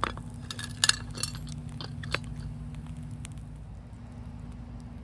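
Wood fire in a fire pit crackling: a few sharp, irregular pops in the first two seconds, the loudest a double pop about a second in, over a steady low hum.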